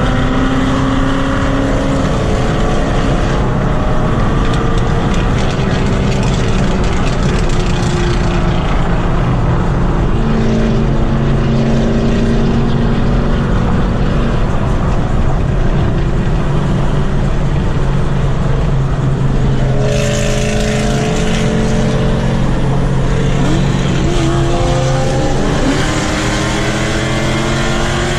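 Loud performance car engines and exhausts running steadily, their pitch shifting as revs change, then climbing near the end as a car accelerates.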